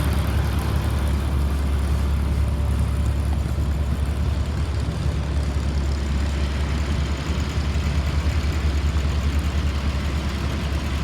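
Caterpillar diesel engine of a 2004 Blue Bird All American school bus idling steadily, warmed up after about an hour of running and sounding healthy.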